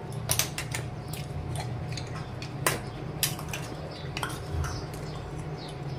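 A small metal spoon clinking against a stainless steel spice tin while cumin powder is scooped out: a handful of sharp, scattered clinks over a steady low hum.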